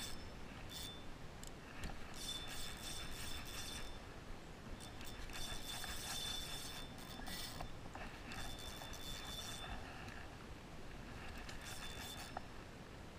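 Pflueger spinning reel being cranked in four or five short bouts, its gears and anti-reverse giving a high, rattly whirr that stops and starts again.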